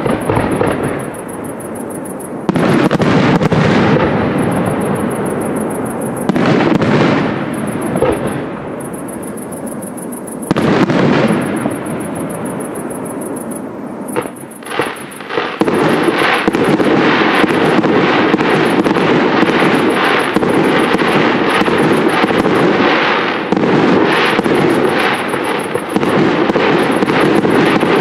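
Aerial firework shells bursting with heavy booms every few seconds. About halfway through they give way to a dense, unbroken crackling of many small reports.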